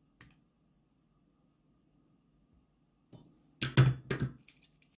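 Hand tools handled and set down on a silicone work mat, among them a pair of flush cutters: a faint tick just after the start, then a short clatter of two sharp knocks about four seconds in.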